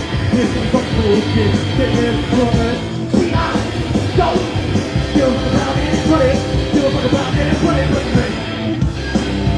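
Punk rock band playing live: loud, dense electric guitars and drums with yelled vocals, in a rough bootleg concert recording.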